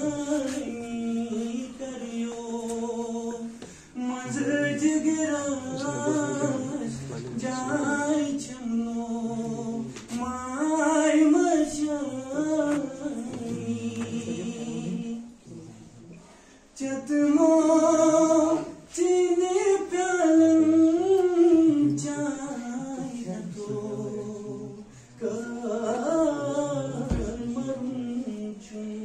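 A man singing solo without accompaniment, in long phrases of held, wavering notes with short breaks between them, the longest about halfway through.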